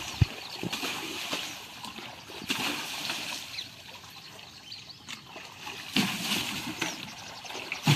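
Water scooped from a flood by hand with a bucket and thrown onto a tractor. It splashes against the machine and back into the water several times, with trickling in between.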